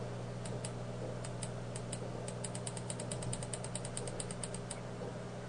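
Computer mouse button clicking: a few spaced clicks, then a rapid run of clicks that stops about a second before the end. A steady low electrical hum runs underneath.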